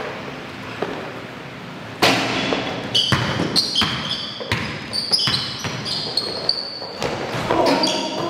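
A basketball game on an indoor court: quiet at first, then from about two seconds in a basketball bounces repeatedly and sneakers give short, high squeaks on the floor.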